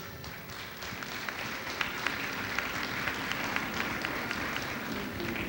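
Audience applauding, many hands clapping in a steady patter that builds up in the first half-second and eases off near the end.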